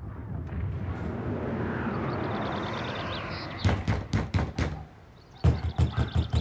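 Knocking on a door: a quick run of about six knocks, a short pause, then a second, longer run of knocks. The knocks follow a few seconds of steady rushing background noise.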